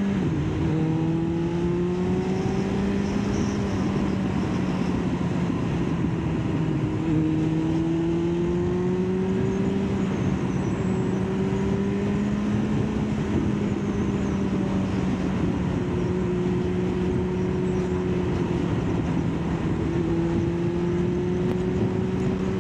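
Kawasaki ZX-9R's inline-four engine running at a steady cruise, its note dipping just after the start and then drifting gently up and down with the throttle. Wind and road noise run under it.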